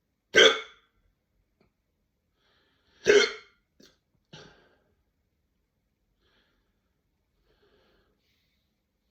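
A person hiccuping hard: two loud hiccups about three seconds apart, the second followed by two fainter short sounds.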